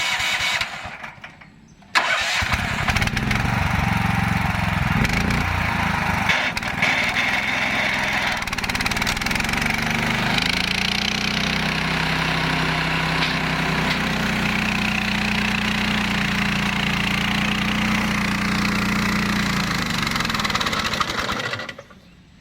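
Walk-behind flail mower with a 15 hp Hyundai engine running, a steady low engine note under a dense, noisy wash. It drops away suddenly about a second in, comes back at full level a second later, shifts in pitch a few seconds on, and cuts off near the end.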